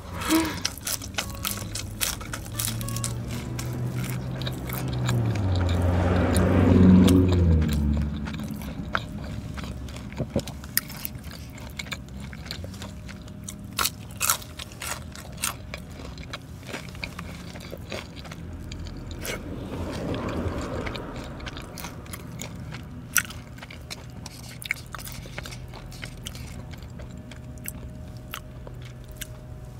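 Crunching bites and chewing of a battered fried skewer, with many sharp crisp clicks. A low rumble swells up and fades about six to eight seconds in, and again more faintly around twenty seconds.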